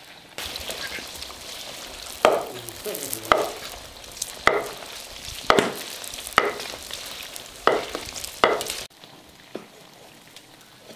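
Pork fat sizzling as it renders into lard in a wok, with a metal spatula scraping and stirring through it about once a second. Near the end the sizzling cuts off suddenly, leaving a quieter stretch with a faint knock of a cleaver cutting pork fat on a board.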